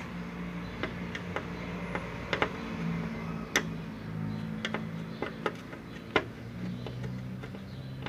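Screwdriver tightening screws on a TV's circuit board: a dozen or so small irregular clicks and taps of the tool against the screws and metal, over a low steady hum.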